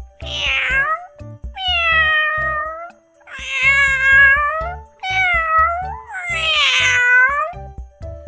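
Domestic cat meowing: five long, drawn-out meows, most falling in pitch, over background music.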